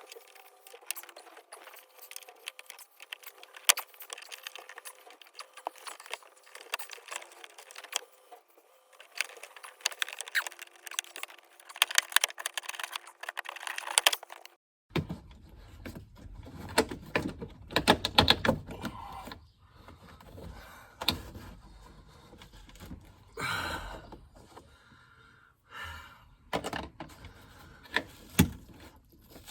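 Plastic car interior trim panels and clips being pried loose and handled, giving many sharp clicks, rattles and knocks, with tools and metal parts clinking. About halfway through the sound changes and becomes fuller, with low thumps.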